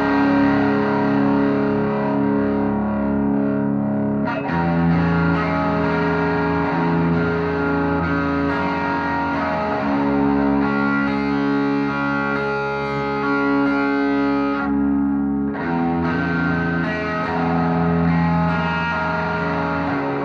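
Gold-top Les Paul-style electric guitar played through a Matchless Clubman amp head and Matchless 4x10 cabinet, driven by a Landgraff MO'D overdrive at low master volume: held overdriven chords ringing out, changing every five seconds or so.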